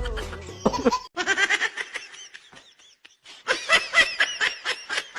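Music fades out, then high-pitched laughter comes in rapid pulses, heaviest in a second burst about three and a half seconds in.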